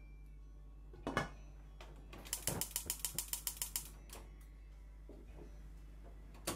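A clunk as the lid goes onto the frying pan, then a gas hob's burner knob and igniter clicking rapidly, about eight clicks a second for a second and a half, as the burner is lit. One more sharp click comes near the end as the knob is turned down to low heat.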